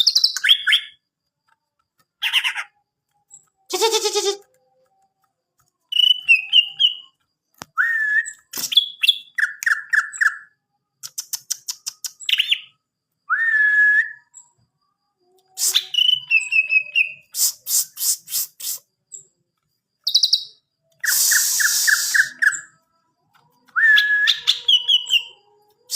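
Cucak ijo, a green leafbird (Chloropsis), singing in short varied phrases: slurred whistles, rapid trills and a few harsh rasping notes, with brief pauses between phrases.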